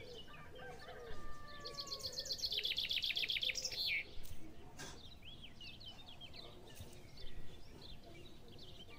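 Birds chirping and calling, with a fast trill of repeated notes a couple of seconds in and scattered short chirps around it.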